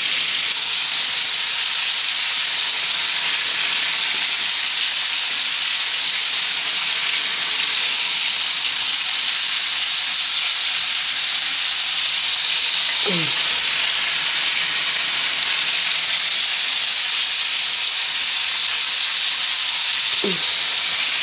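Small new potatoes frying in oil in a skillet, a steady sizzle. Two brief falling squeaks cut through it near the middle and near the end.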